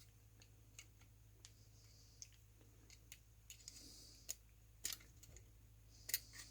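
Faint, irregular small clicks and ticks of a small metal tool prying at a tiny plastic 5-pin cable connector on a mouse's circuit board, worked back and forth to free it. The clicks come unevenly, with the sharpest ones in the second half.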